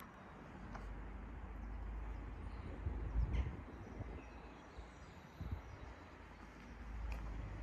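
Outdoor street ambience: a low, uneven rumble on the microphone that swells about three seconds in and again near the end, with a few faint bird chirps.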